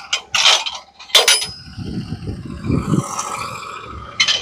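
Metal clanks and clinks from a manual sawmill's log-handling gear as a log is set up for squaring. There are a few sharp ringing strikes in the first second and a half, and a rough low rumbling scrape through the middle.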